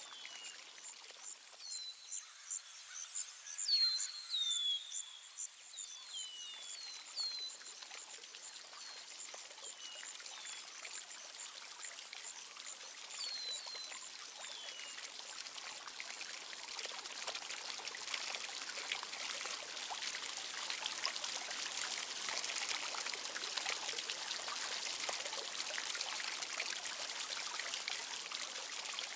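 Birds chirping over running water. Short falling chirps and a high, rapid trill come through the first half, then the water grows louder and steadier.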